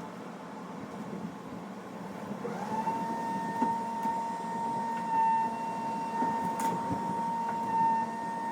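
A power trimming tool's motor spins up about two and a half seconds in and then runs at a steady high whine, over a low rumble.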